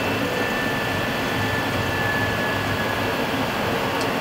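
Steady engine and airflow noise heard inside an Airbus A320 flight deck during the initial climb after takeoff, with faint steady whining tones over the rush.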